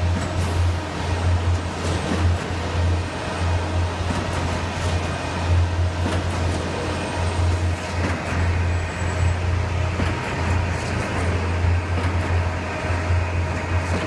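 Construction-site din from the diesel engines of concrete mixer trucks and a truck-mounted concrete boom pump running steadily, with a deep rumble that swells and dips irregularly.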